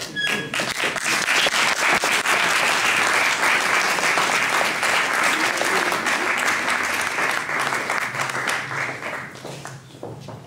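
Audience applauding in a hall: dense clapping that builds within the first second, holds steady, then dies away near the end.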